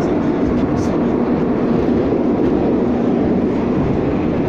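Metro train running through the tunnel, heard from inside the passenger car: a loud, steady rumble of wheels on rails and running gear.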